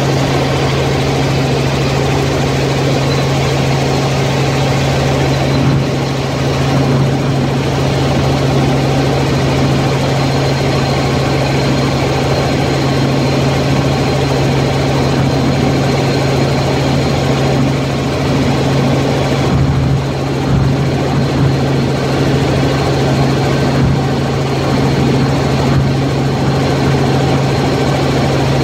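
Light helicopter in steady cruise flight, heard from inside the cockpit: a constant low hum from the rotor and engine over an even rushing noise.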